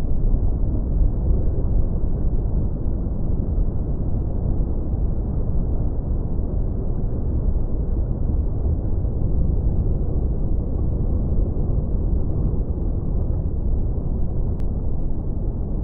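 Tropical beach ambience: a steady, muffled low roar of surf with no distinct wave crashes.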